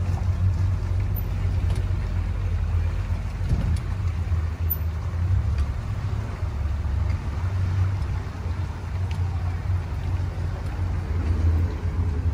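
A tour boat's motor running with a steady low rumble while the boat cruises.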